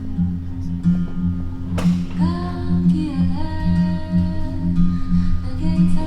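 Background music: a low pulsing beat about twice a second, with a wordless sung voice coming in about two seconds in, just after a single sharp click.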